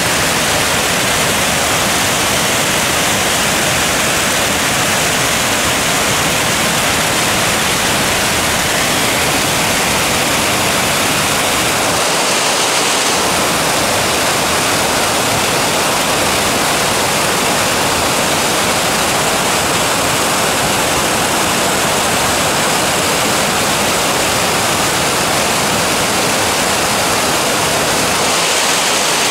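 Waterfall cascading over rock ledges at a cave mouth: a loud, steady rush of falling water.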